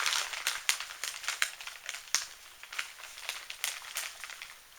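Plastic kit parts bags crinkling and rustling as they are handled, with scattered light clicks and taps from the parts.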